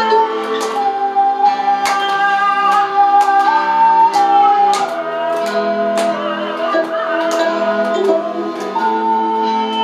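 Ocarina playing a slow melody of long held notes that step down and back up, over an accompaniment with plucked chords.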